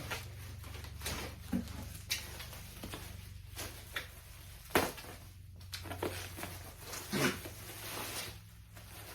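Toy packaging being handled and opened: scattered rustles and sharp clicks, a few of them louder, over a low steady hum.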